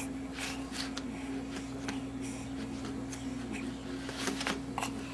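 Light, scattered clicks and rustles over a steady low electrical hum.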